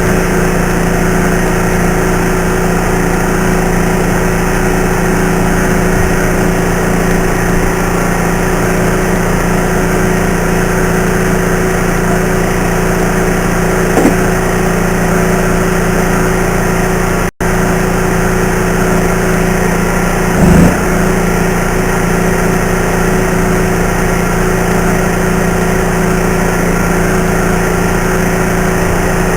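Steady, unchanging machine hum with an even noise over it, from electric stick-welding work. The sound cuts out for an instant about 17 seconds in, and there is a short thump about 20 seconds in.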